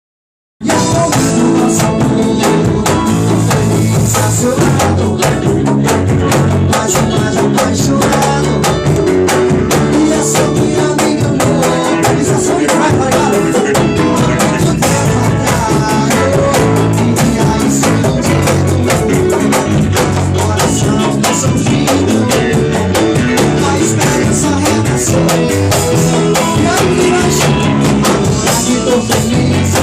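A band's song starting about half a second in: drums keeping a steady, busy beat under guitar.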